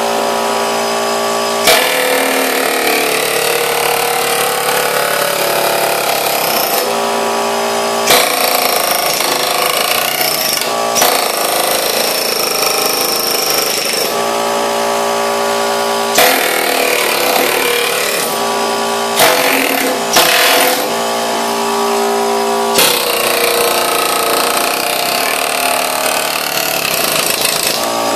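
Pneumatic air hammer with a flat chisel bit running in long stretches, a fast buzzing hammering as the blade scrapes old floor covering and glue off steel stair treads. A handful of sharp clacks stand out along the way.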